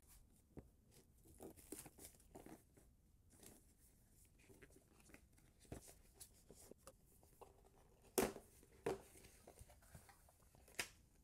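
Faint handling of a paperboard box being opened: a knife slitting the seal, the sleeve sliding off and the lid lifted, as soft scrapes and rustles. Three sharper taps come near the end.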